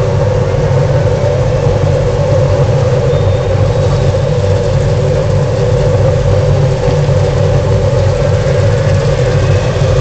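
A grid of IndyCar racing engines (Honda 3.5-litre V8s) running at idle just after being started, a loud steady sound with no break.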